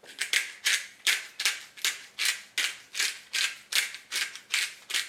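A hand-twisted seasoning mill grinding, a steady run of short rasping turns at about three a second.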